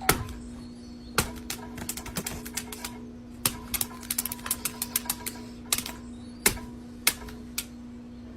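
A quick, uneven run of sharp taps and clicks over a steady low hum.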